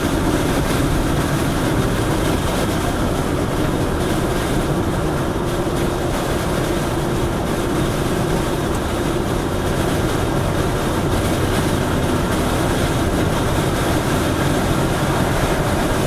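A car cruising at freeway speed, heard from inside the cabin: a steady rumble of tyre and road noise, with a faint hum through the first half.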